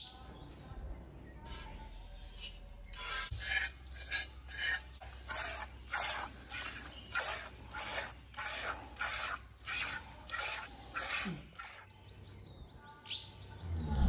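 Cow milked by hand into a steel pot: quick rhythmic squirts of milk hissing into the pail, about two to three a second. Bird chirps near the end.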